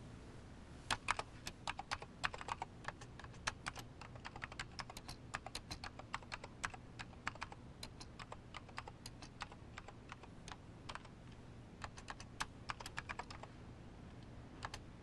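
Typing on a computer terminal keyboard: irregular keystrokes starting about a second in, with a short pause near the end and a last couple of keys just before it closes.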